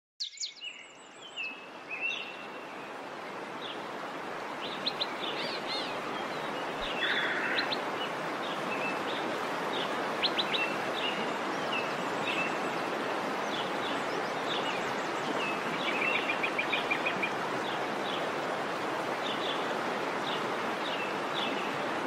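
Steady rush of a waterfall that swells up over the first few seconds, with many songbirds chirping, whistling and trilling over it. The birds give short calls throughout, and there is a quick buzzy trill a little after the middle.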